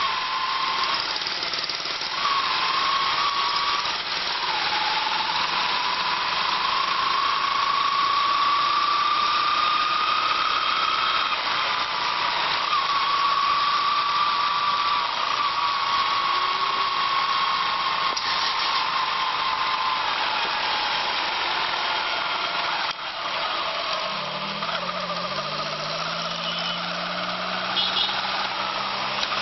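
Engine of a moving vehicle running in traffic, with a whine that slowly rises and falls with speed over a steady rushing noise. Near the end a lower, stepping engine note comes in.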